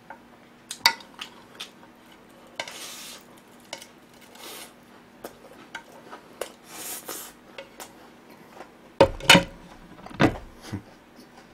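A spoon scraping a plate clean, a few soft scrapes with light clinks and taps. About nine seconds in, the plate is set down on the table with a couple of louder knocks.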